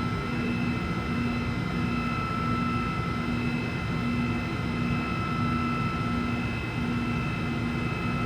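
Okuma Genos M560-V vertical machining center's spindle running free at a steady 7,000 RPM, a steady whine of several high tones over a low rumble. A low tone pulses on and off a bit under twice a second throughout.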